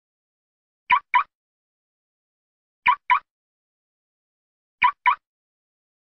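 Car being locked: a quick double chirp, heard three times, about two seconds apart.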